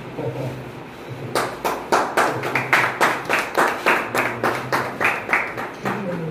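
A small group of people clapping their hands in a steady rhythm, about three claps a second. The clapping starts about a second in and stops near the end.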